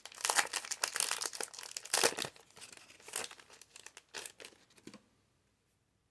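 Foil Pokémon card booster pack wrapper crinkling and tearing as it is opened by hand, stopping suddenly about five seconds in.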